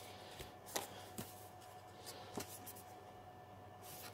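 Faint rustling and a few light taps of paper and card being handled: a sticker sheet and a folded instruction leaflet.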